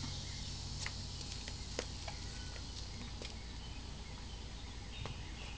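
Quiet outdoor background with a steady faint hum and scattered light clicks and taps.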